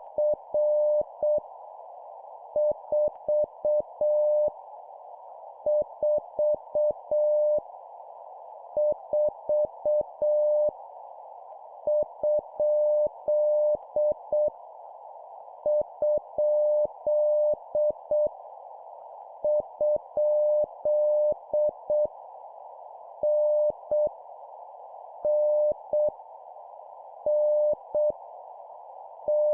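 Morse code (CW) sent at 7 words per minute: a steady mid-pitched tone keyed on and off in dots and dashes, forming random letters, numbers and punctuation, each repeated three times, over a constant hiss.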